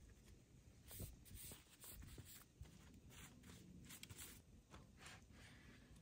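Near silence, with a run of faint, soft scrapes or rustles, about three a second, through the middle.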